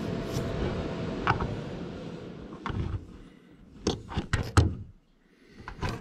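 Handling noise: a rustling hiss that fades over the first two seconds or so, then a run of sharp clicks and knocks, loudest about four to four and a half seconds in, from hands and meter probes working among the wiring and boards inside an opened microwave.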